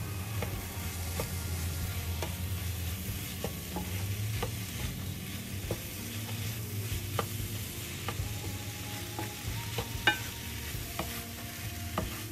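A wooden spatula stirs sliced okra through a masala in a non-stick pan, over a faint sizzle. The spatula knocks and scrapes against the pan irregularly, with the sharpest knock about ten seconds in, above a steady low hum.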